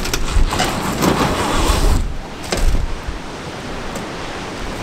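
Strong wind buffeting the microphone: a heavy rumble for about two seconds that then eases, with a few sharp knocks along the way.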